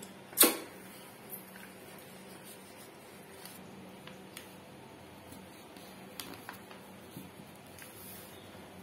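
A sheet of A4 paper being handled and folded by hand, with faint rustles and small taps. One sharp click about half a second in is the loudest sound.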